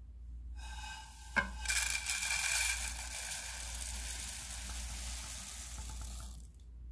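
Dry-roasted, crisp puffed rice (murmura) poured from a nonstick pan into a bowl: a steady, crisp rustling hiss of the light grains tumbling and settling, with one sharp knock about a second and a half in.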